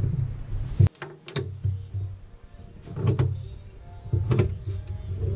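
Capsule coffee machine being handled: a series of sharp clicks and knocks as its lever is lifted and the capsule chamber worked, the loudest about a second in. Background music plays underneath.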